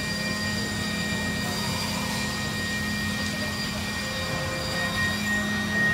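Mazak PFH-5800 horizontal machining center running: a steady machine drone with a thin, constant high whine over it, swelling slightly near the end.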